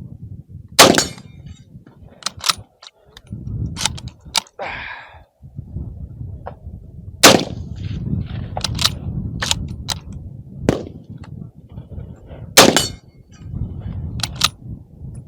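Three loud rifle shots from a Mosin-Nagant bolt-action rifle (7.62×54R), about five to six seconds apart. Between them come fainter gunshots and clangs of bullets hitting steel targets.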